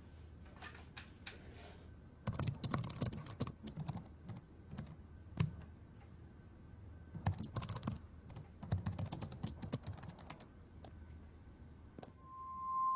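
Computer keyboard typing in quick bursts of keystrokes with short pauses between, over a faint low hum.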